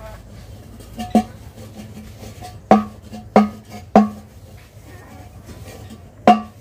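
Steel pots and bowls clanking against each other as they are washed by hand. There are about six sharp clanks, each ringing briefly: a pair about a second in, three more close together near the middle, and one near the end.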